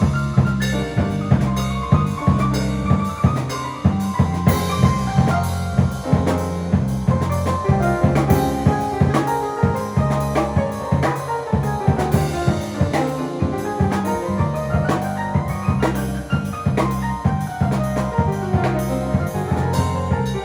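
Instrumental Latin-flavoured jazz piece: a steady drum-kit beat with rimshots under a repeating bass line and a moving melody.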